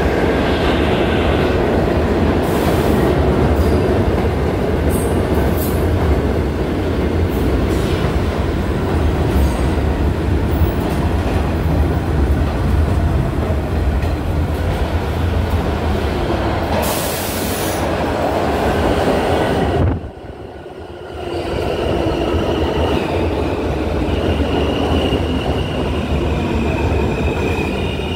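New York City subway train running past on the far track: a loud, steady rumble of wheels on rail. After a brief break, an R160 subway train pulls in along the platform, its wheels squealing with a steady high ringing over the rumble.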